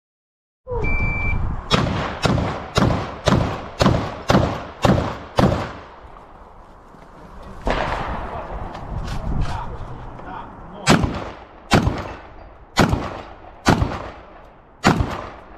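A shot timer's steady start beep, then a fast string of about nine gunshots at roughly two a second. After a short pause come several more shots, spaced about a second apart.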